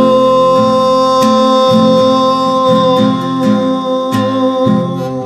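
A man singing the last word of a zamba, holding one long note, with his own classical guitar strummed in zamba rhythm underneath. The held note fades just before the end.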